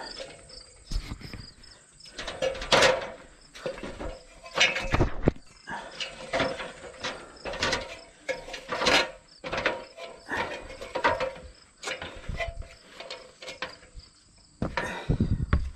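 Irregular knocks, clanks and scrapes of someone climbing an aluminium extension ladder onto a corrugated steel roof while carrying a copper weathervane, with heavier thumps of footsteps on the metal roof near the end.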